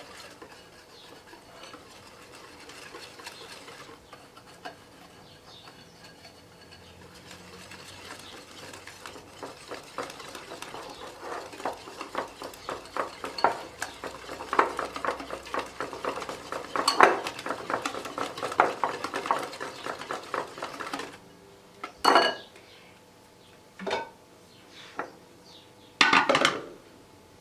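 Hand whisk beating eggs, sugar and cornstarch in a bowl: a fast run of clicks against the bowl that grows louder, then stops, followed by a few separate knocks near the end.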